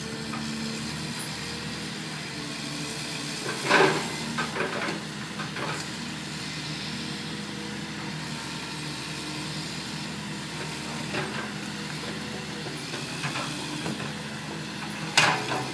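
Caterpillar 324D hydraulic excavator's diesel engine running steadily as its grapple tears into a brick and concrete-block wall. A loud crash of falling masonry about four seconds in is followed by a few smaller ones, with light knocks later and another loud crash near the end.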